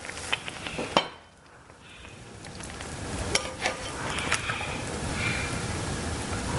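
A metal spoon clicking and scraping against a skillet as poached eggs are scooped out of the hot water, with a sharp clink about a second in. From about two seconds in, a steady sizzling hiss builds up in the pan.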